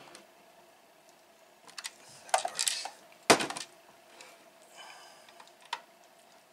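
Clicks and knocks of a screwdriver and the small plastic TV case being handled on a table. A short scrape a little over two seconds in is followed by a sharp clack, the loudest sound, about three seconds in, with a few lighter clicks after.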